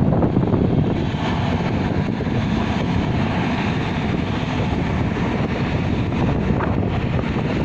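Steady wind noise on the microphone over a low rumble from a bulk cargo ship moving past close by.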